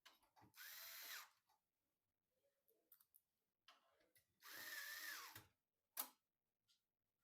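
Small electric screwdriver run in two short bursts, its motor whine rising and falling each time, followed by a sharp click.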